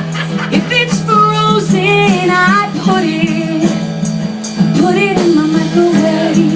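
A song: a voice singing melodic phrases over guitar chords with a steady beat.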